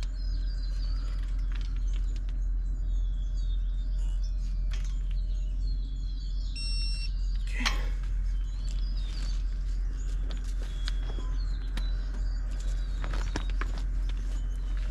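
Steady low hum with birds chirping over it, and scattered metallic clicks from a torque wrench being worked on the hub bolts. One sharp click comes about eight seconds in, and a quick run of clicks comes near the end.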